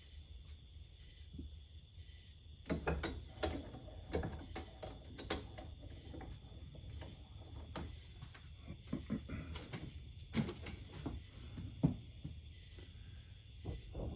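Scattered clinks, knocks and rattles of metal tools and parts being handled and set down at a workbench toolbox, starting a few seconds in, with the sharpest knock near the end.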